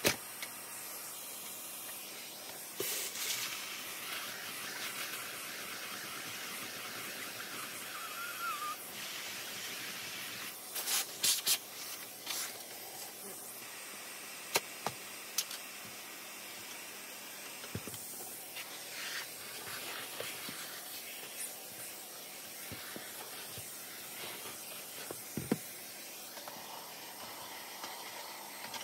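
Clear plastic dustbin of a Dyson V15 cordless vacuum being handled and taken apart, giving a few scattered plastic clicks and knocks over a steady hiss.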